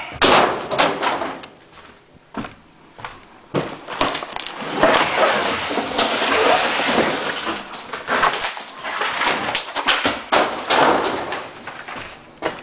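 Broken drywall crashing into a metal truck bed at the start, then a long stretch of crackling, scraping and knocking as pieces of torn gypsum board are handled at a pile.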